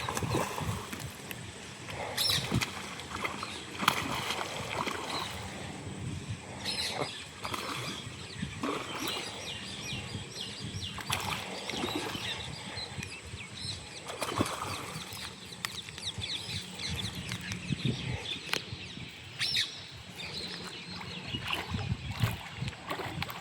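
Irregular splashing and flapping, with small birds chirping throughout.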